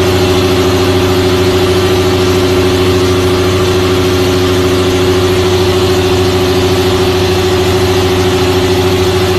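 CNC milling machine face-milling a metal plate: a loud, steady machine hum with one strong held tone over a lower drone, unchanging throughout.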